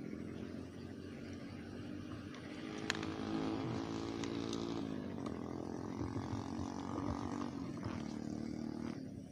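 An engine running steadily, its pitch shifting up and down, then dropping away near the end. There is a single sharp click about three seconds in.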